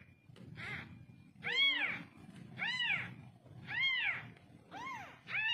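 Newborn kittens meowing: a series of high-pitched mews, each rising then falling in pitch, about one a second.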